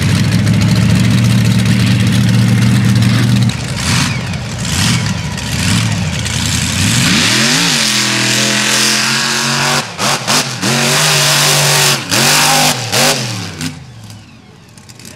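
Mega truck engine at steady high revs for the first few seconds. After that it revs up and down again and again, the throttle chopping off sharply several times, before it falls quieter near the end.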